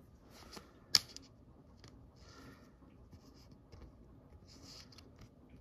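Faint, scattered rustling and scraping of a trading card being slid into a plastic card sleeve, with one sharp click about a second in.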